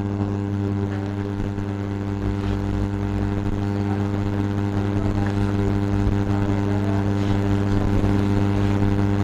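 Steady low electrical hum made of a stack of even, unchanging tones, with a few faint ticks over it.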